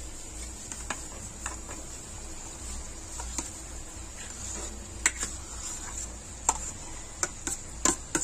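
Steel spoon scraping and knocking against a steel plate as mashed boiled potatoes are pushed off it into a kadhai: irregular sharp clicks and taps, roughly one a second, the loudest in the second half.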